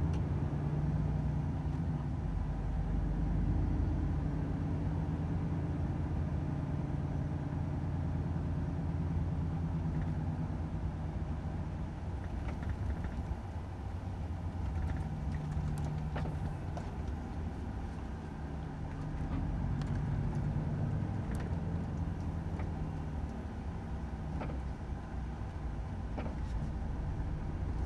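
Volvo FH 500 truck's 13-litre straight-six diesel engine running, a steady low drone whose pitch shifts slightly as the truck drives. A few faint clicks and rattles come through now and then.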